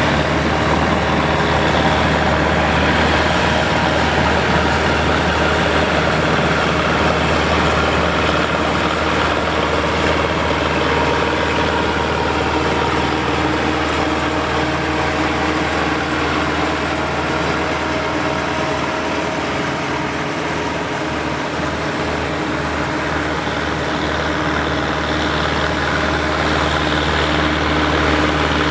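Farm harvest machinery running steadily in a wheat field: an engine hum under the whir of the working machine, easing slightly about two-thirds of the way through and building again near the end.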